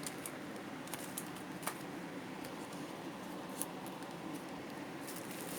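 Soft handling of merchandise and packaging: a few light clicks and taps, one a little louder about three and a half seconds in, over a faint room hiss.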